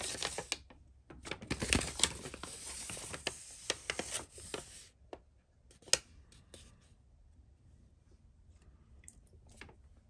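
Paper rustling and crinkling for about five seconds, like pages being leafed through, then a few sharp clicks about six seconds in and faint handling after.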